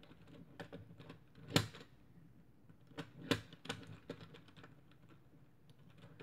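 A Meffert's Gear Ball twisty puzzle being turned by hand, its plastic gears clicking irregularly, with two louder clacks about a second and a half and three seconds in.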